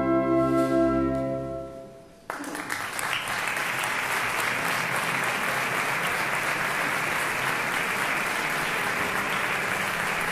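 Wind band of clarinets, saxophones and brass holding the final chord of a Spanish processional march, which fades away over the first two seconds. The audience then breaks into steady applause that goes on to the end.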